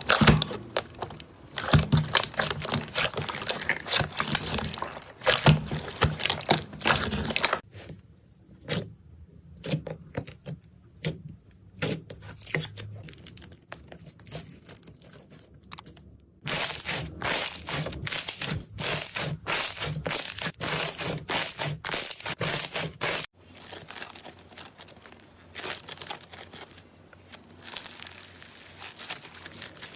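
Slime being squished and poked by hand, giving close, dense crackling, popping and sticky clicking. The texture and loudness change abruptly three times as one clip cuts to the next.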